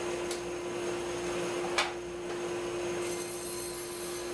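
Delta table saw running with its blade spinning, a steady hum, with one sharp click about two seconds in.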